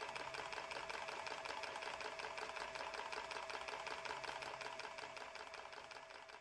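Rapid, even mechanical clicking with a steady hum underneath, slowly fading near the end.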